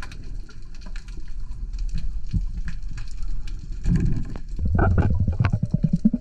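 Underwater sound picked up by a submerged camera: a low water rumble with faint crackling clicks, then from about four seconds in a louder low gurgling rush of moving water and bubbles.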